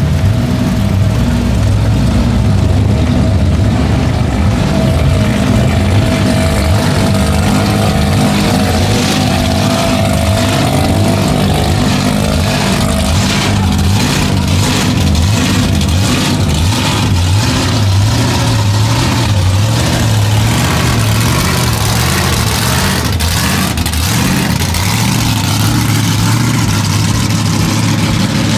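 A loud car engine running and revving, its note held high and steady with a brief rise, and a run of sharp cracks about halfway through.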